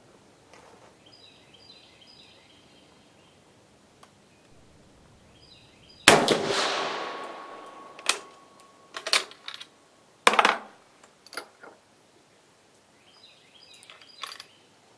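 A single rifle shot from an 8mm-converted Carcano M38 Troop Special carbine about six seconds in, with a ringing echo dying away over a second or so. Then a few sharp metallic clicks and clacks as the bolt is worked.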